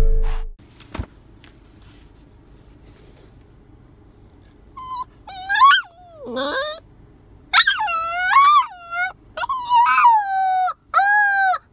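Husky puppy, three months old, howling and whining in a crate: a string of wavering calls that rise and fall in pitch, starting about five seconds in and coming in quicker succession near the end. Intro music cuts off at the very start.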